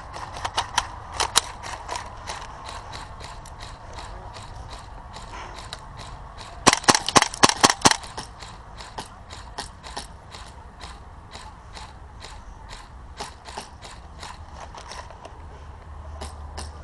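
Airsoft guns firing with sharp mechanical clicks, about three a second. Near the middle comes a louder rapid burst of about eight shots.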